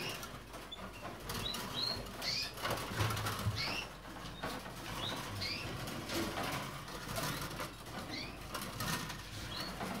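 Caged finches calling with short rising chirps, about one a second, mixed with wing flutters and small knocks as the birds move about the cage.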